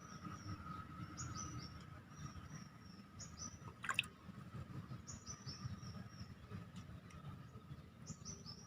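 Outdoor ambience of a bird chirping in short phrases, each a quick run of high notes stepping down in pitch, repeated every second or two over a steady faint high hum and low rumble. A single sharp click sounds about four seconds in.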